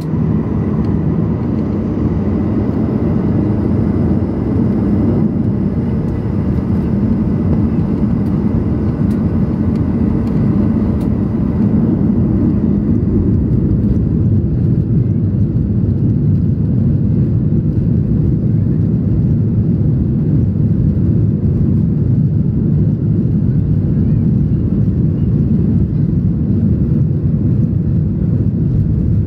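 Boeing 737-800's CFM56 jet engines and the airframe heard from inside the cabin during the takeoff roll: a loud, steady rumble as the jet accelerates down the runway. A faint high whine fades out about halfway through.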